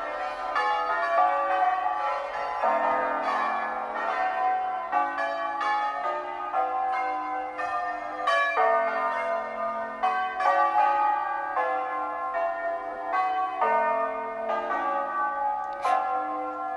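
Tower bells played as a tune: a run of single bell strikes at about two a second, each pitched note ringing on under the next.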